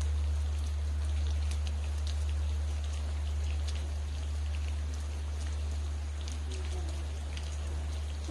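Steady rain, with scattered individual drops ticking close by, over a constant low rumble.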